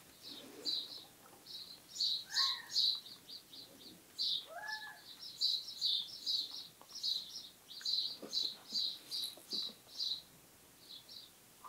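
Quiet high-pitched chirping, short chirps repeating about two or three times a second, with two brief whistled glides a few seconds in, one falling and one rising.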